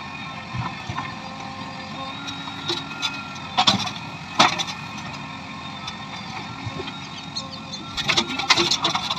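An engine running steadily, with a few short, loud bursts of sound about three and a half seconds in, a second later, and again near the end.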